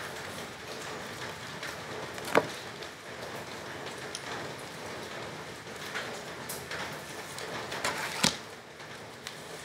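Playing cards being handled and laid down on a wooden bench: a few sharp taps, the loudest near the end, over a steady background hiss.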